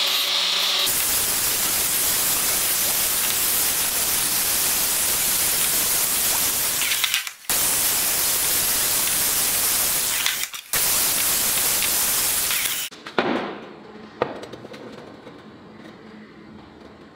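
Angle grinder grinding the cut end of square steel tubing, a steady grinding noise that breaks off briefly twice and stops about 13 seconds in. Two short knocks follow, then only a faint hum.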